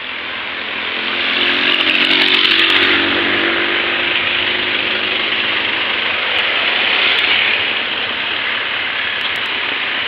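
A small petrol engine running steadily under a loud hiss, loudest about two to three seconds in.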